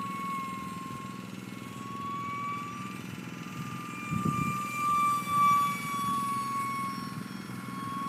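Electric ducted fan of an E-flite UMX Habu 180 DF ultra-micro RC jet whining in flight. It is a steady high whine that wavers slightly in pitch and swells loudest about five seconds in.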